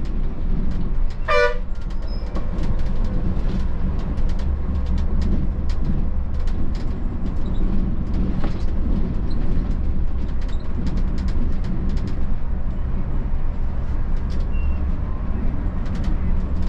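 Volvo B11R coach's diesel engine running with a steady low rumble, with frequent rattles and knocks as the bus drives over a rough, broken road. A short horn toot sounds about a second in.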